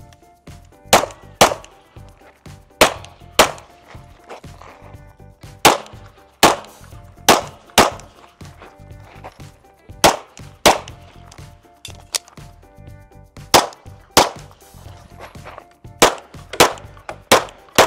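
Pistol firing in quick pairs, about eight double shots spaced a second or two apart with fainter clicks in between: two shots on each target in a timed stage run.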